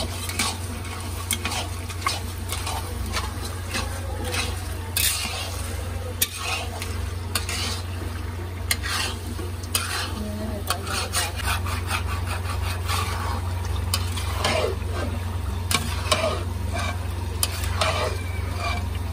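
Long-handled spatula stirring a thick halwa mixture in a black wok, scraping against the pan in irregular strokes while the mixture sizzles as it fries in fat. A steady low hum runs underneath.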